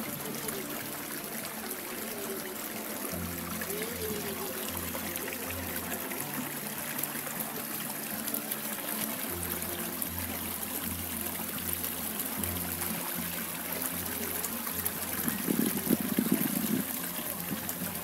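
Water trickling steadily, with faint background music underneath.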